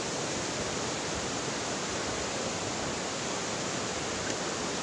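Steady rushing of a fast stream, an even hiss of running water with no breaks.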